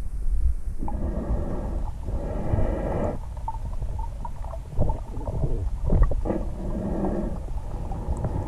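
Muffled underwater sound through a camera housing as a swimmer moves among fish: a steady low rumble of water movement with scattered small clicks, and two longer swells of sound, one about a second in and one about halfway through, each lasting around two seconds.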